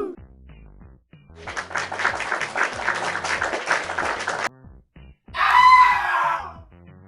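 Inserted comedy sound effects over faint background music. First comes a harsh, fluttering scream-like sound lasting about three seconds, then a short squawking, crowing call.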